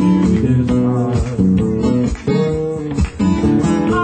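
Live acoustic guitars playing a steady accompaniment, with a man singing into a microphone over them.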